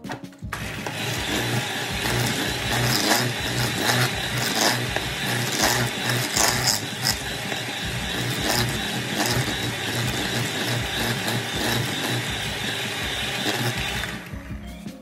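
Electric hand mixer running with its twin wire beaters in a plastic bowl, beating an egg into a stiff, crumbly shortcrust mixture. The beaters knock against the bowl now and then. It switches on about half a second in and stops near the end.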